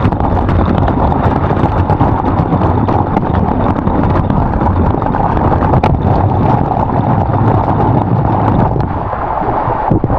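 Loud, steady rush of waterfall water pouring over the rock close to the microphone.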